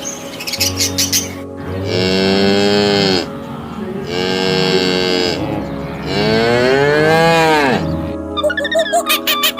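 Cow mooing three times, long drawn-out moos that each rise and fall in pitch, over soft background music.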